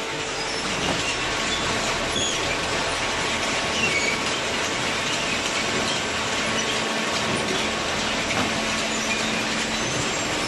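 Hydraulic cardboard baler running: a steady, even machine noise with a faint hum through it.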